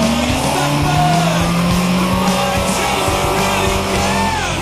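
Rock music with guitar, laid over the low, steady sound of an off-road vehicle's engine.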